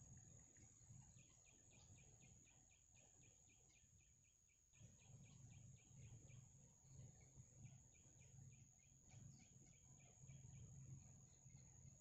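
Faint outdoor ambience: runs of short high chirps, about five a second, with brief pauses, over a steady high whine and a low rumble.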